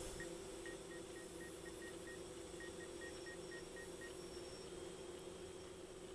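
Faint steady hum of a DJI quadcopter drone's propellers in flight. A run of short, evenly spaced high beeps sounds through the first four seconds, and there is a brief knock right at the start.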